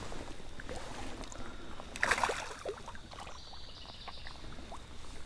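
Creek water splashing, with one brief louder splash about two seconds in among small scattered water sounds.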